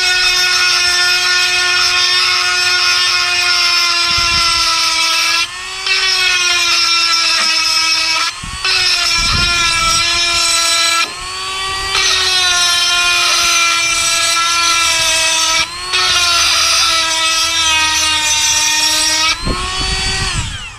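Cordless rotary tool with a diamond bit running at high speed, grinding damaged cast iron gear teeth back past the root to prepare them for brazing. It makes a steady high whine, and its pitch and level dip briefly about five times. It winds down just before the end.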